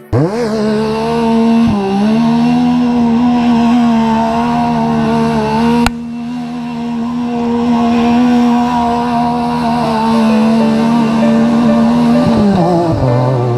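Off-road vehicle engine revving up and held at high, steady revs for about twelve seconds, with a brief dip near the start, then dropping off near the end. A sharp click about six seconds in, after which the sound is slightly quieter.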